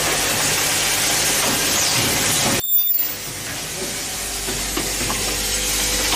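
Automatic assembly and ultrasonic welding machine running: a steady hiss of machine noise with faint ticks and light tones. It breaks off for a moment just under three seconds in.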